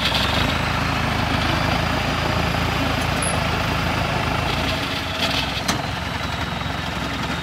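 Engine of a tracked rice-hauling carrier running steadily at low speed, with two short knocks a little past halfway.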